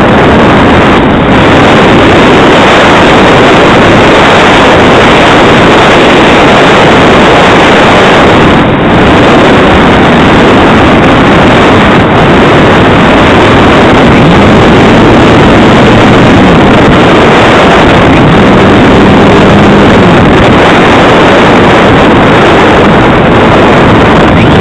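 Loud, steady wind noise from air rushing over the onboard camera's microphone on a Calypso RC glider in flight, easing briefly about nine and twelve seconds in.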